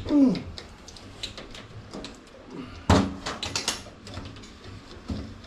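Screen door being handled: a sharp knock about three seconds in, followed by a quick rattle of clicks. Near the start there is a short, loud sound falling in pitch.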